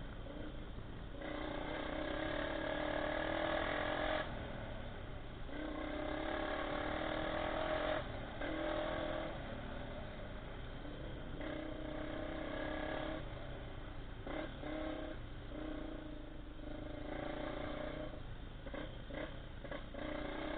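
Honda XR 250 Tornado trail motorcycle's single-cylinder four-stroke engine, heard on board while riding, the throttle opening and closing so the engine note rises and drops away several times. Short clatter sounds come in during the later stretches when the engine eases off.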